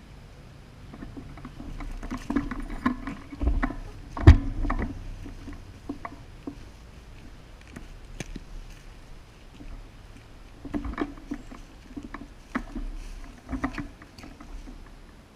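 Rustling and scuffing of movement close to the microphone, in two irregular spells, with one sharp knock about four seconds in.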